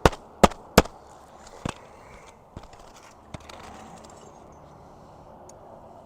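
Roofing hatchet driving a nail through asphalt shingles over a second shingle layer: three quick, sharp strikes in the first second, another near two seconds in, then a couple of faint knocks.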